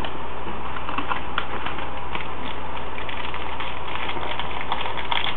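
Trading cards and foil pack wrappers being handled: faint, scattered small clicks and crinkles over a steady low electrical hum from the webcam microphone.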